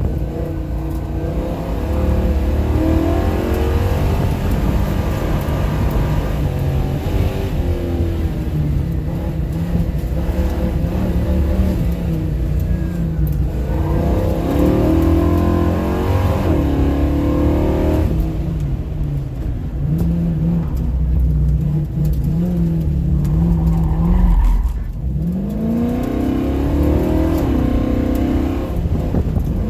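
Car engine driven hard through an autocross course, its pitch rising and falling again and again as the driver accelerates and lifts between corners.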